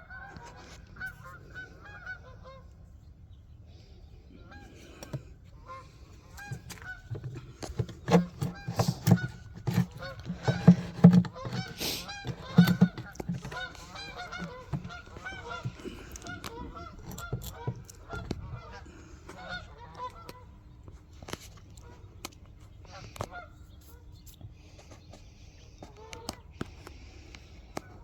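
Geese honking repeatedly, with a run of loud knocks and bumps in the middle.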